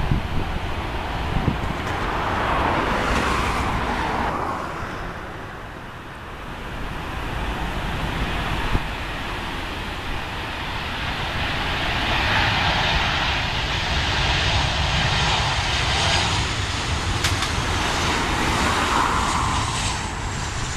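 Jet engines of Ryanair Boeing 737-800s, a steady rushing jet noise that swells and fades as the aircraft move. Near the end a high engine whine slides down in pitch as the landing jet passes close on touchdown.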